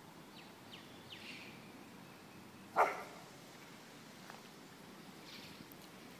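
A dog barks once, a single short bark nearly three seconds in.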